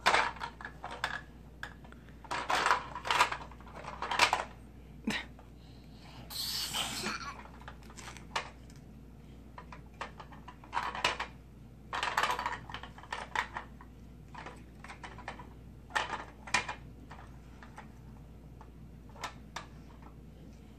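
Hard plastic toy parts clicking and clattering in irregular bursts as a toy jet and small figure are handled, with a short scraping rustle about six seconds in.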